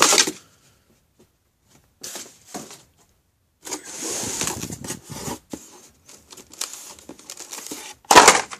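Cardboard case and plastic blister cards rustling and scraping as carded Hot Wheels cars are pulled from the bottom layer of the case, with scattered light clicks and a louder knock near the end.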